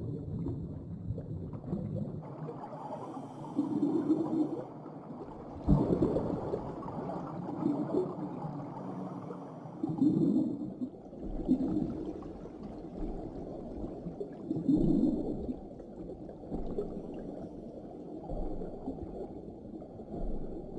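Muffled underwater sound design: low gurgling bubble swells come every couple of seconds from a diver's breathing gear, with a single dull knock about six seconds in.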